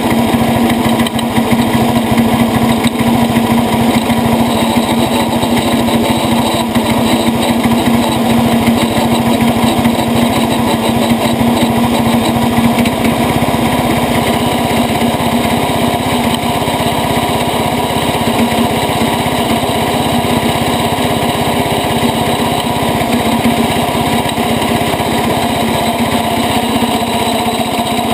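International Cub Cadet 80 garden tractor's engine running steadily as the tractor drives over rough ground, heard loud and close from a mount on the tractor itself.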